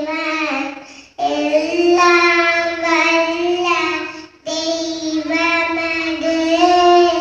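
A young girl singing solo into a handheld microphone, unaccompanied, holding long steady notes with short pauses for breath about a second in and about four seconds in.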